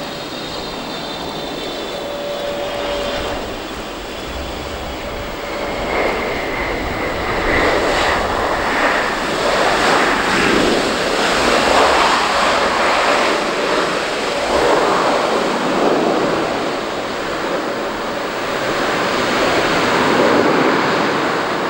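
Boeing 777-300ER's twin GE90 jet engines as the airliner lands and rolls out on the runway. A high fan whine at first, then from about six seconds in a louder rush of engine noise that swells and eases in waves.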